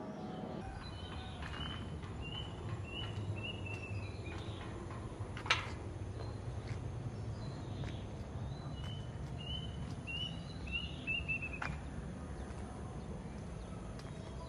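A bird singing two phrases of short, quickly repeated chirping notes that each slide down slightly, over a steady low rumble. A single sharp click comes about five and a half seconds in.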